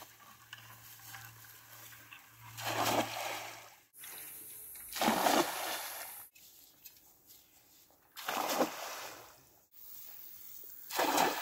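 Cast net (atarraya) hitting the water and splashing, four separate throws, each splash lasting about a second.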